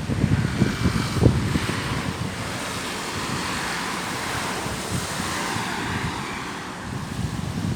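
Sea waves washing in, with wind buffeting the microphone in gusts, strongest in the first second or two.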